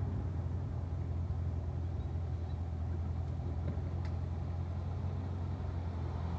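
Corvette Stingray's 6.2-litre LT1 V8 running steadily near idle as the car rolls at walking pace, a low, even hum.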